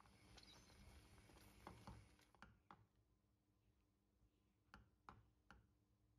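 Faint sounds of a silicone spatula stirring thickening sour cherry sauce in a metal pan. A soft hiss with light clicks lasts about two seconds, then comes a handful of separate light taps of the spatula against the pan.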